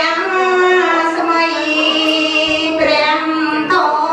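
Khmer Buddhist chanting: voices hold long, drawn-out notes that step up and down in pitch, and a new phrase begins near the end.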